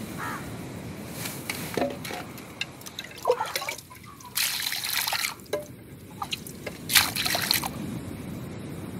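Water poured from a small clay cup over raw mutton pieces in a pan to wash them. There are two splashing pours in the second half, and a few knocks of clay cup against pot before and between them.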